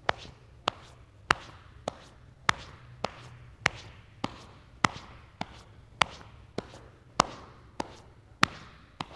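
Open palms slapping the shoulders and back of the neck in self-massage patting. A sharp slap comes about every 0.6 seconds, alternating louder and softer.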